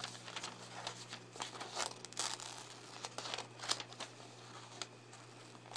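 Scissors cutting through a glossy magazine page in a series of irregular snips, with the paper crinkling and rustling as it is handled.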